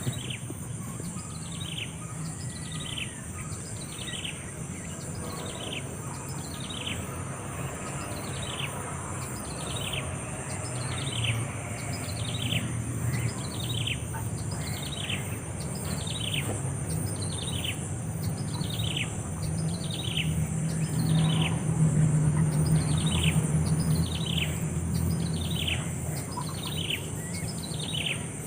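A bird calling a long, regular series of short downslurred notes, about one a second.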